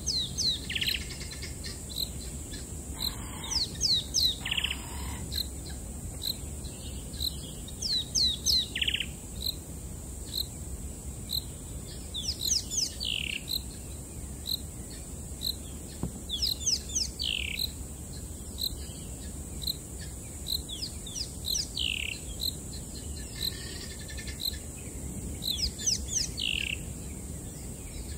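High chirping calls, each a quick cluster of several downward-sliding notes, repeating every few seconds over a steady high insect drone and evenly spaced faint ticks.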